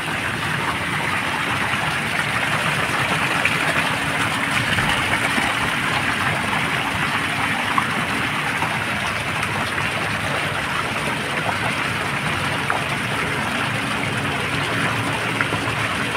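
Decorative fountain jets splashing steadily into a shallow basin: water pouring down from a bell-shaped jet and thin arcing streams falling into the pool.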